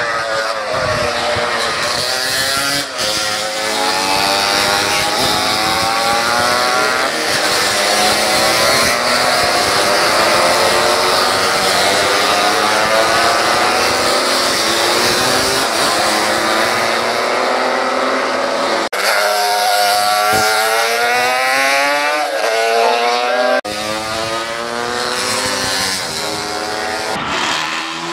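Road-racing motorcycles at high revs as they race past one after another, the engine note climbing and then dropping again and again as they change gear.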